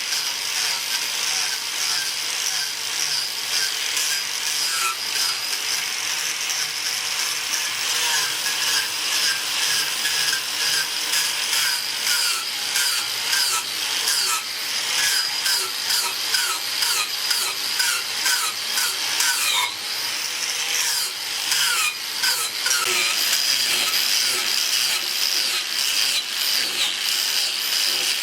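Angle grinder with a carving disc cutting into hardwood: a steady motor whine with quick repeated passes, about two strokes a second.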